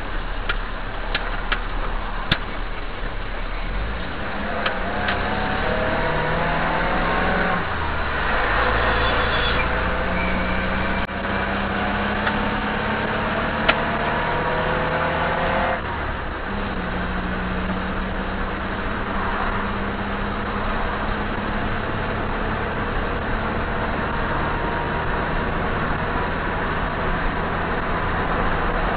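A vehicle's engine rising in pitch as it accelerates, dropping back at a gear change about eight seconds in and again about halfway through, then running more steadily, heard from inside the cab over steady road noise. Two sharp clicks, about two and fourteen seconds in.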